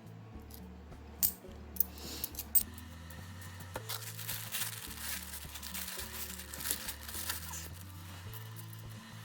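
Background music with steady low notes under the handling of 50p coins: a few sharp coin clicks in the first few seconds, then several seconds of rustling and clinking as coins are sorted.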